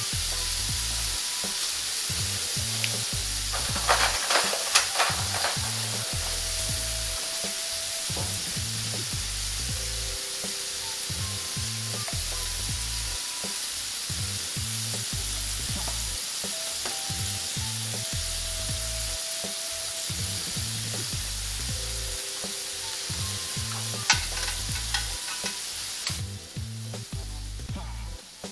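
Seasoned chopped meat sizzling steadily on a hot flat-top griddle, with a few clicks of a metal spatula about four seconds in and again near the end, when the sizzle eases.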